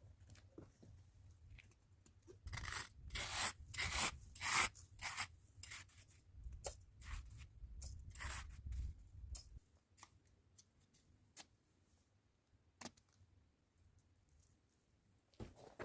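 A quick run of short rasping strokes, like something being cut or scraped by hand, followed by a few faint isolated clicks.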